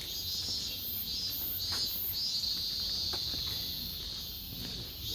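Insects calling in chorus: a steady high shrill with a still higher note pulsing on and off about twice a second, with a few faint clicks beneath.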